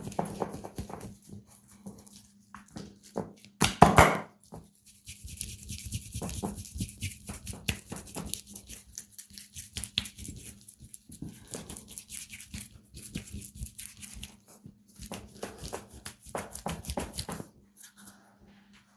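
Massage sounds of hands working on a person's head and skin: rubbing, scratching and patting in uneven runs, with one louder sharp hit about four seconds in. A faint steady hum runs underneath.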